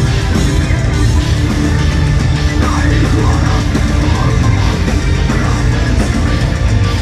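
Melodic death metal played live and loud: heavily distorted electric guitars, bass and drums in a steady, dense wall of sound, heard from the audience.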